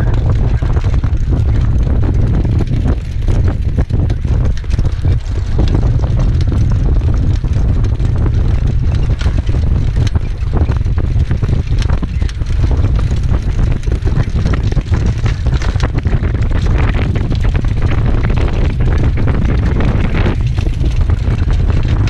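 Heavy wind buffeting a camera microphone on a harness-racing sulky moving at speed, with the horse's hoofbeats and the sulky's run over the dirt track under it.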